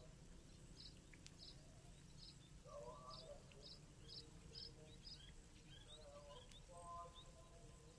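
Faint open-air ambience with a small bird giving short, high chirps about every half second, and a few fainter lower-pitched sounds about three seconds in and again near the end.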